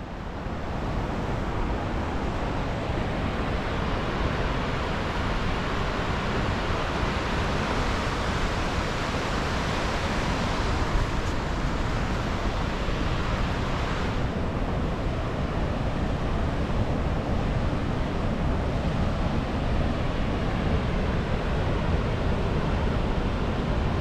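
Steady road and tyre rumble of a car driving on an open road, with wind rush. The tone of the road noise shifts and dulls about halfway through.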